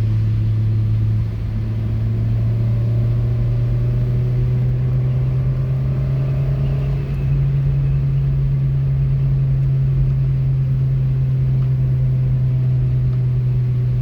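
2005 Scion tC's 2.4-litre four-cylinder engine and road noise heard from inside the cabin while cruising in fourth gear: a steady low drone. It dips briefly twice, about a second in and about seven seconds in, and sits slightly higher in pitch after each dip.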